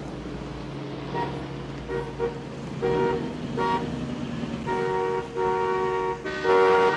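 Car horns honking at a man standing still in the road in front of them. Short toots start about a second in, then come more often and grow into longer blasts, the loudest near the end, over the low hum of waiting traffic.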